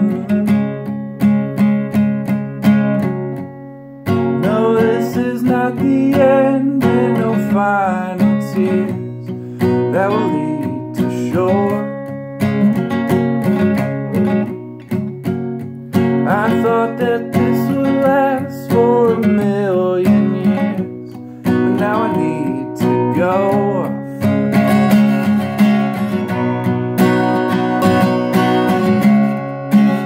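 Acoustic guitar with a capo, strummed chords played steadily, with wordless singing over it for much of the middle.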